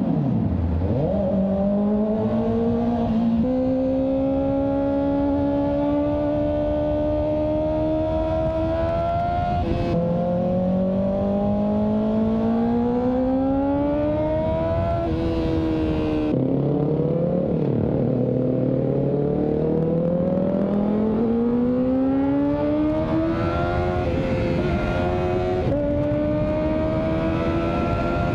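Kawasaki ZX-4RR's inline-four engine revving hard under acceleration, its pitch climbing and then dropping back sharply several times as it shifts up through the gears.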